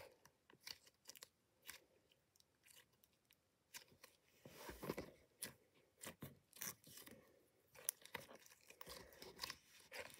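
Soft purple slime being stretched, squeezed and pressed by hand, giving faint, irregular sticky crackles and pops that grow busier after the first few seconds.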